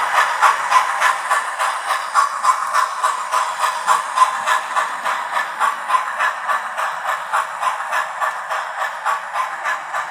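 Hornby TTS sound decoder in a Flying Scotsman model playing a steam locomotive's exhaust chuffing through its small onboard speaker as the model runs, an even beat of about four chuffs a second. It gradually grows quieter.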